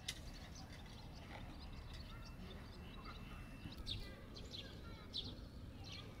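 Small birds chirping repeatedly in short, high calls over a steady low outdoor rumble, with a brief click right at the start.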